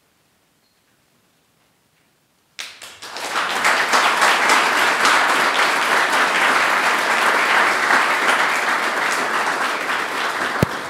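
Near silence, then about two and a half seconds in a seated audience starts applauding, a steady clapping that carries on through the rest. A single sharp knock sounds near the end.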